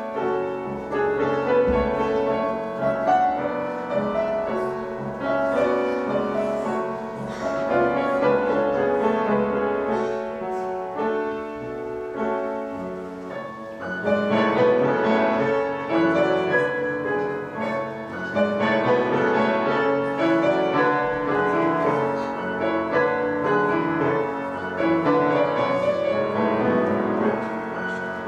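Grand piano playing a piece with many quick notes. It softens for a moment a little before the halfway point, then comes back louder.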